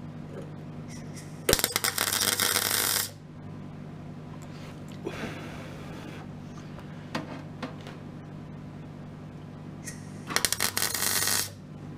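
MIG welder laying heavy tack welds on the steel sill and wheel arch lip: a crackling arc of about a second and a half, then a second, slightly shorter one near the end, with a few small clicks and knocks in between.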